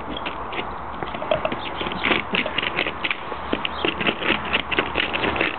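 Saarloos wolfdog crunching and knocking at chunks of ice, biting at them and pawing at them in a plastic paddling pool. A quick, irregular run of sharp clicks and crunches thickens from about two seconds in.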